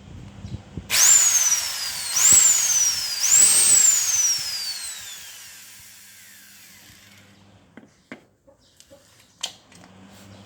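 Handheld electric cutter's motor, partly dismantled, switched on in three short bursts: each time the whine leaps up in pitch and falls away, and after the third it winds down slowly over a few seconds. It is a test run for bad bearings, and this part is judged fine.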